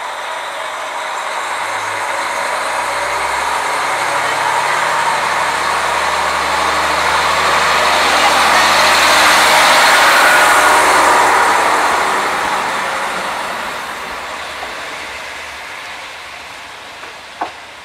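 KiHa 40 diesel railcar pulling away from a station: its diesel engine revs up under load, and engine and wheel noise swell as the car passes close by about ten seconds in, then fade as it runs off down the line. A single sharp click near the end.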